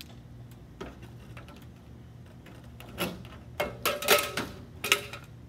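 Tin snips cutting metal drip edge: a quick run of sharp metallic snips and crinkles with a slight ring, starting about three seconds in and lasting about two seconds.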